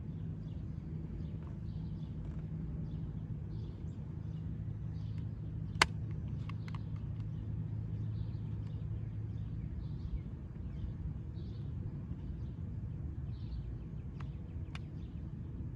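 Door latch and child-lock mechanism being handled and wiggled to free it: a few sharp clicks, the loudest about six seconds in, a couple more near the end, over a steady low hum and faint bird chirps.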